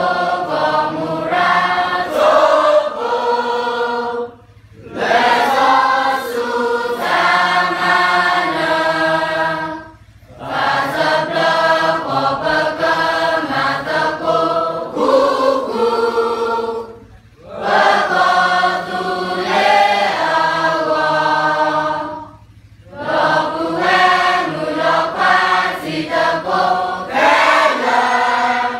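A large group of students singing together, in sung phrases of about five to six seconds, each followed by a brief pause for breath.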